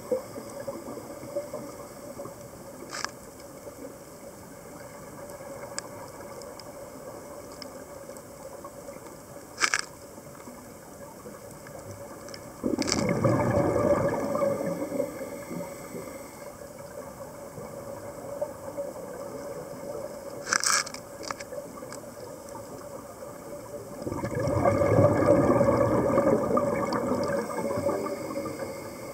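Underwater scuba sound heard through a camera housing: a diver's regulator exhaling twice, each a loud gush of bubbles lasting a few seconds, over a steady hum. A few sharp clicks fall between the breaths.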